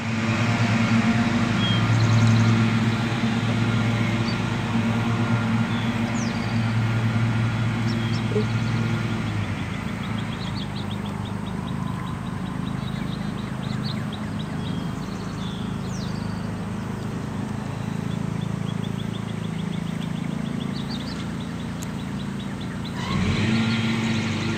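Birds chirping and trilling over a steady low mechanical hum. The hum is strongest for the first several seconds and rises again near the end.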